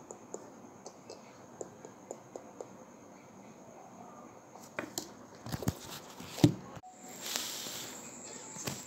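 Faint pencil strokes and light taps on drawing paper. Then, a little past halfway, a few louder knocks and rustles from handling, and an abrupt break into a steady hiss. A thin high steady tone sits behind it all.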